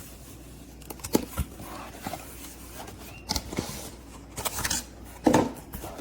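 A knife-set box being opened and its packaging handled: scattered knocks and clicks, then rustling and scraping, loudest about five seconds in.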